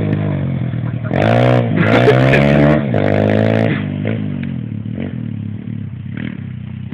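125cc dirt bike engine revving in three rising surges about a second apart as it accelerates, then fading away after about four seconds.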